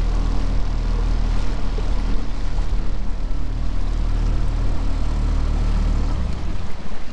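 Small outboard motor on an inflatable dinghy running steadily under way. Its low engine note drops a little near the end.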